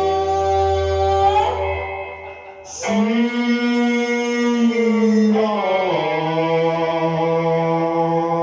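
A live rock band holding long sustained chords on electric guitars and bass guitar. The first chord dies away about two seconds in, a new chord is struck just before three seconds and rings on, and the band moves to another chord between five and six seconds in.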